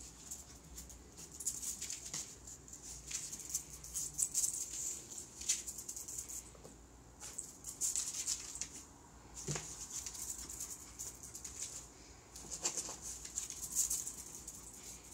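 A puppy's and a cat's paws and claws scrabbling and skittering on a concrete floor as they play: irregular runs of light, scratchy pattering, with a soft knock about nine and a half seconds in.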